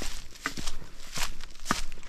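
Footsteps of a person walking downhill on dry leaf litter and loose stones, about four steps in two seconds.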